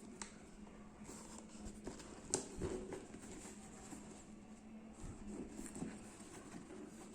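Hands handling a new pair of futsal shoes and their packaging: scattered light taps, clicks and rustles, with the sharpest tap about two seconds in, over a faint steady hum.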